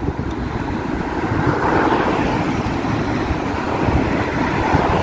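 Road traffic on a busy multi-lane city street: steady engine and tyre noise as cars drive past close by.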